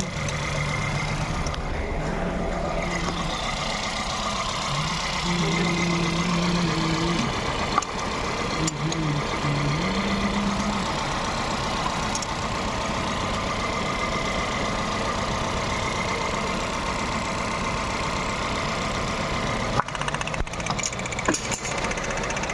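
Volkswagen petrol engine idling unevenly with cylinder 1 misfiring, its injector getting no pulse. A low hum steps up and down over it in the first half, and there are a few sharp clicks.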